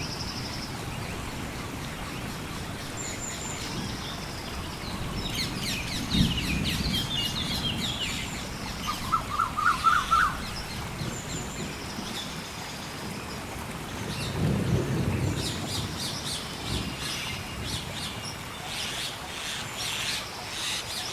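Rainforest ambience: steady rain with low rolls of thunder about six seconds in and again about fourteen seconds in, under birds chirping and whistling, including a short run of rising notes about nine seconds in.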